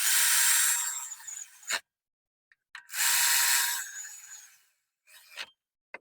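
Ratchet driving the new belt tensioner's mounting bolts in, in two runs of about two seconds each that fade out as they end, followed by a few faint clicks.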